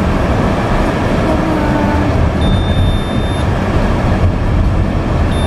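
Car driving, heard from inside the cabin: a steady, loud rumble of road and engine noise. Two steady high electronic beeps, each about a second long, come about 2.5 seconds in and again near the end.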